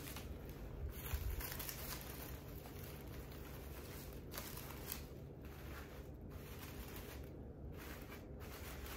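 Soft rustling and handling noises over a steady low hum and hiss.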